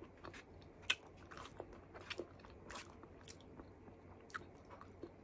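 Close-up eating sounds of a person chewing sautéed string beans with sardines and rice: soft wet mouth clicks and smacks at an irregular pace, with a sharper click about a second in.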